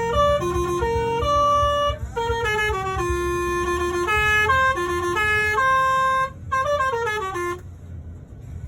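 A bus's basuri (telolet) musical air horn playing a tune of held notes with quick descending runs. It stops about 7.5 seconds in, over a steady diesel engine rumble.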